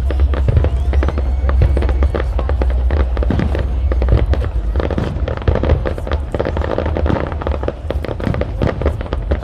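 Fireworks display: a dense, rapid string of bangs and crackles, many a second, over a steady low rumble.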